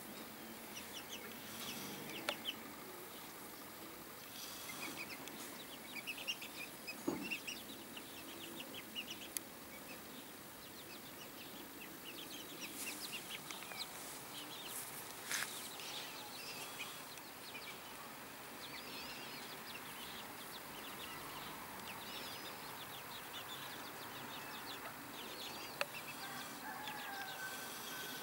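Bantam chickens: a hen clucking and small chicks peeping, fairly quietly, with a few sharp clicks here and there.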